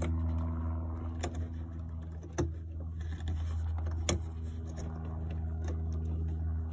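Hands fitting the wiring connector onto an HID headlight bulb in a cramped housing: scattered plastic clicks and rubbing, the sharpest about four seconds in, over a steady low hum.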